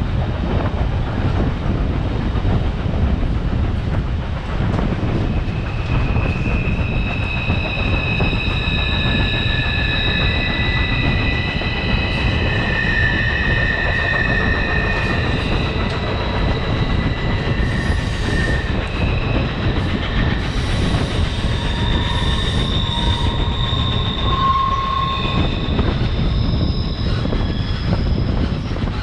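Passenger train rolling along the track with a steady rumble of steel wheels on rail. From about six seconds in until near the end, the wheels squeal in several high, shifting pitches, the flange squeal of cars working through a curve.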